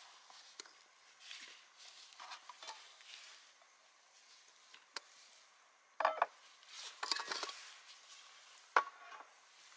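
Rummaging through a bag of camping cookware: faint rustling with a few sharp ringing clinks as metal cups and dishes knock together, the loudest about six seconds in and another near the end.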